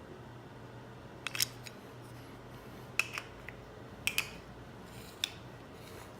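Several sharp clicks and taps, in four small clusters, as silver coins in their plastic capsules are handled.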